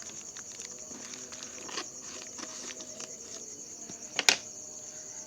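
Insects chirring steadily in a rapid pulsing trill, with scattered light knocks from a package being handled and one sharp click about four seconds in.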